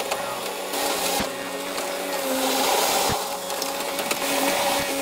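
John Deere 575 skid steer loader running as it drives over crushed stone: a steady mechanical whine whose pitch wavers slightly, with two faint knocks, about a second in and about three seconds in.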